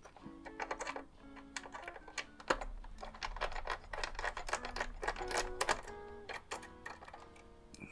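Light background music with a run of quick clicks and rattles of small parts being handled, loudest in the middle. The clicks come from a screwdriver and plastic radio casing as the housing is taken apart.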